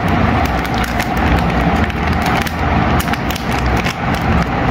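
Metallised anti-static bag crinkling and crackling as hands pull and tear at it to get it open, a dense run of small crackles throughout.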